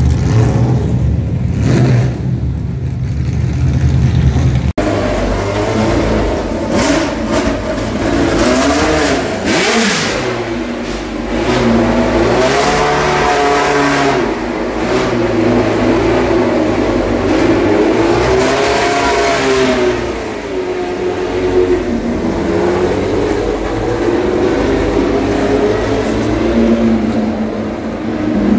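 Historic Formula One racing car engines at high revs, their pitch rising and falling over and over as the cars accelerate, change gear and go by. For the first few seconds there is a lower, steadier engine note, which cuts off abruptly.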